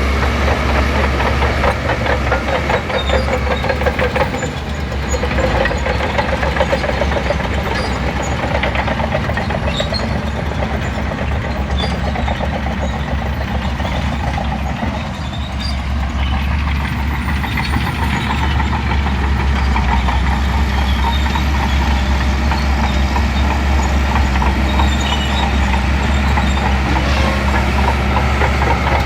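Diesel engine of a Shantui crawler bulldozer running steadily with a fast mechanical rattle, easing off briefly a few seconds in and again about halfway through.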